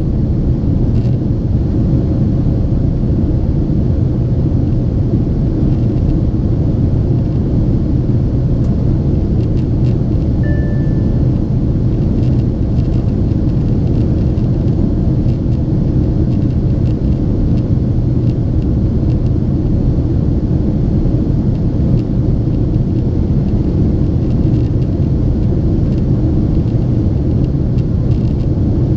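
Steady low rumble of a Boeing 767-400ER's engines and airflow, heard inside the passenger cabin from a window seat.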